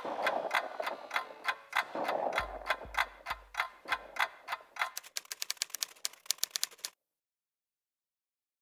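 Typewriter sound effect for on-screen text being typed: steady clicks with a few low thumps, then a faster run of key clicks that stops suddenly about seven seconds in, leaving silence.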